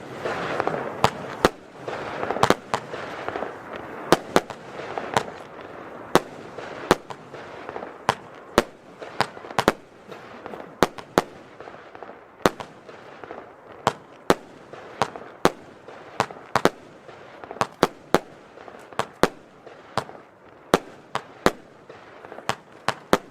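Panda Magma Burst F2 firework battery firing: a rapid, irregular run of sharp bangs, about two or three a second, over a hiss of launching shots that is strongest in the first few seconds and then thins out.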